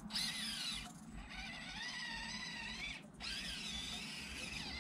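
Electric motor and gears of an Axial 1/24-scale Ford Bronco RC truck whining, rising and falling in pitch with the throttle. The whine cuts out briefly about a second in and again about three seconds in.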